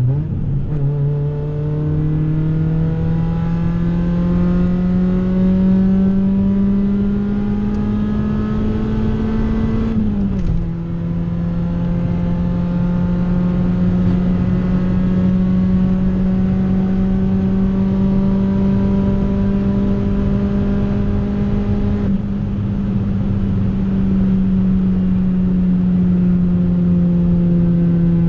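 Cabin sound of a Honda Civic's D16 four-cylinder through a catless, straight-piped exhaust, accelerating with the engine note climbing, then dropping about ten seconds in as it shifts up, then rising slowly again and easing off a little near the end. The exhaust note is loud throughout and is what the owner calls very raspy.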